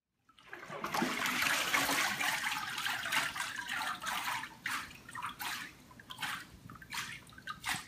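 Water streaming off a hand papermaking mould lifted from the vat of pulp and pouring back into the vat, a steady rush for about three seconds. It then breaks into a run of short trickles and splashes as the mould is tilted and the last water drains through the screen.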